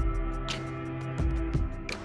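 Background music: held synth chords over a deep bass, with a quick ticking beat.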